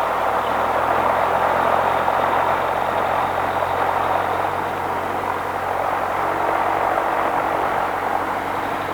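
Piper PA-28-180's four-cylinder Lycoming engine and propeller running steadily at low power, the airplane taxiing or holding short before takeoff.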